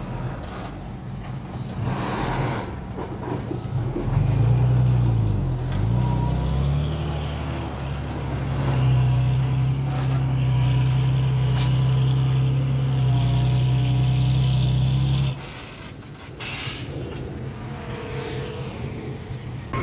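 Heavy diesel engine of earthmoving equipment working, its pitch dipping and rising about four to six seconds in, then running steadily before dropping away suddenly about fifteen seconds in. Short hisses near the start and near the end.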